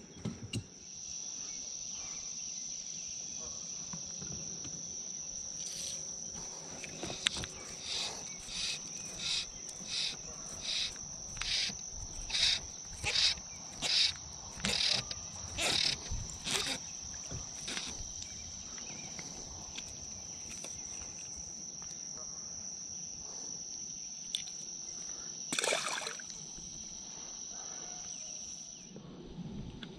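Insects buzzing outdoors in a steady, high-pitched drone. Partway in, a run of about fifteen rasping pulses comes at roughly one and a half a second, and a single brief whoosh is heard near the end.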